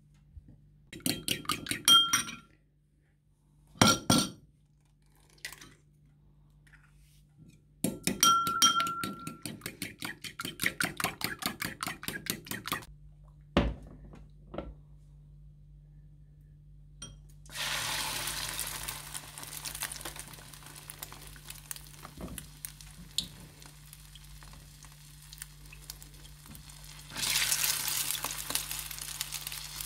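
A metal fork clinking quickly and rhythmically against a ceramic bowl in two bursts, with a couple of single knocks between. About halfway through, breaded chicken fillets go into hot oil in a frying pan and set off a steady sizzle, which grows louder near the end as a second fillet is added.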